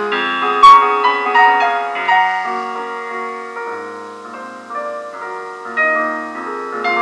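Solo piano playing a classical passage in held chords and melody notes: a strong accented chord about half a second in, fading to a soft stretch around the middle, then building again near the end.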